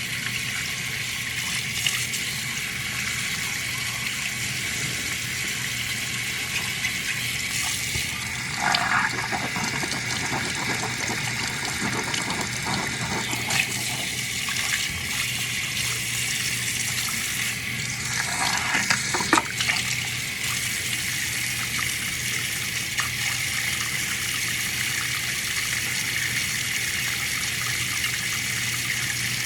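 Water running steadily from a tap, with a few brief knocks and clatters about nine and nineteen seconds in.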